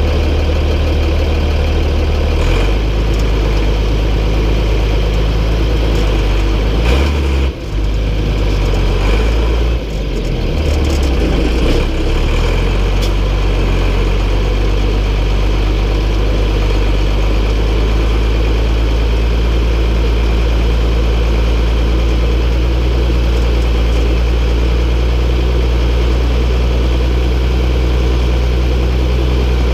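MB Trac 1800's six-cylinder diesel engine running at low revs. The engine note shifts a few times in the first dozen seconds, with two brief dips, then holds steady at idle.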